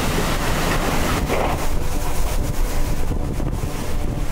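Hurricane-force wind blowing hard across the microphone: a loud, steady rushing noise with a heavy low rumble of buffeting.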